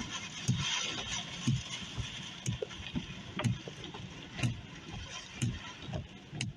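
Steady storm noise heard from inside a car, with a regular thumping about twice a second over a constant hiss.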